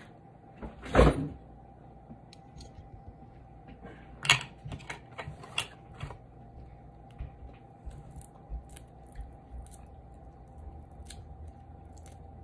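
Scattered small cracks and clicks of cooked shellfish shells being peeled and handled by hand, with a louder knock about a second in. A faint steady hum runs underneath.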